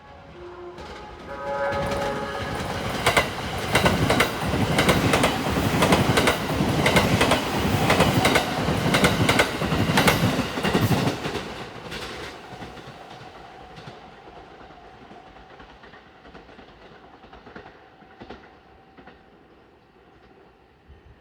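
Music horn of a 285-series Sunrise Seto sleeper train playing a short tune of a few stepping notes as it nears the level crossing. The train then passes at speed: a loud rush of running noise and repeated wheel clacks for about ten seconds, fading away as it recedes.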